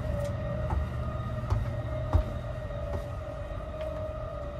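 Steady electrical hum and low rumble of the Sunrise Seto's 285-series sleeper carriage standing at the platform, with a held whine-like tone and no running or rail noise. A few light knocks sound about once a second, the loudest about two seconds in.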